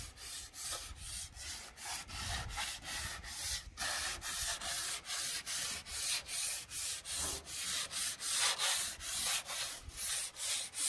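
Sandpaper rubbed by hand back and forth over an old painted metal wall, taking off loose, flaking paint, in even strokes about three a second. The paper is fairly fine and does not cut through to bare metal.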